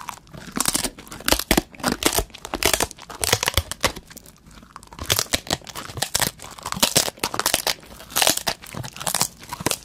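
Crisp, crackly biting, tearing and chewing of an edible paper banknote, in dense irregular strokes with a brief quieter lull about four seconds in.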